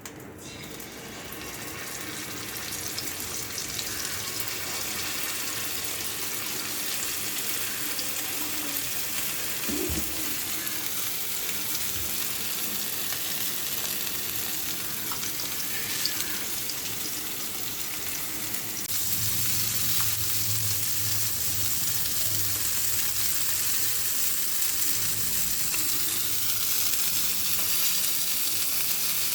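Chilli-powder-marinated fish shallow-frying in a little oil in a pan: a steady hissing sizzle that builds up over the first few seconds and grows louder about two-thirds of the way through, with a couple of light knocks.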